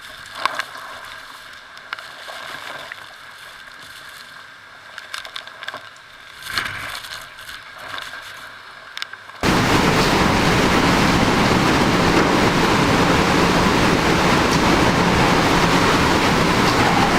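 Faint rustling and scattered clicks, then an abrupt jump about nine seconds in to a loud, steady rush of hurricane wind buffeting the microphone.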